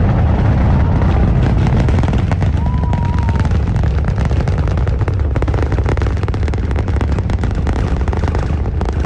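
Rocket launch: the engines' loud, steady low rumble with dense crackling, easing slightly as the rocket climbs. A short whistle-like cry rises over it about three seconds in.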